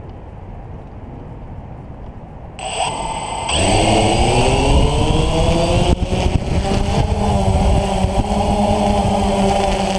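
A low background hiss, then about two and a half seconds in the DJI Phantom FC40 quadcopter's four electric motors with DJI 9450 propellers start up. About a second later they spin up with a rising whine and louder buzz as the drone lifts off, then settle into a steady buzzing hum of the propellers in flight.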